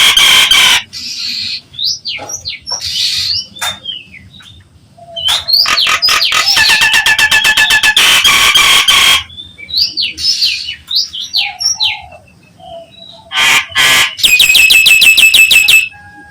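Nias hill myna calling: loud, harsh bouts of fast-repeated rattling notes, each lasting a few seconds, alternating with short gliding whistles. The longest bout runs about four seconds from around five seconds in, and another comes near the end.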